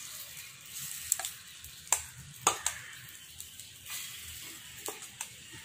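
Egg batter being ladled into the hot, oiled wells of a paniyaram pan, sizzling faintly, with a few light clicks of the steel ladle, the sharpest about two seconds in.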